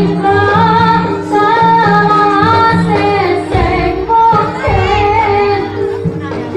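A woman singing a wavering, ornamented melody over Javanese gamelan-style accompaniment with steady held tones. Heavy low drum beats come in about halfway through.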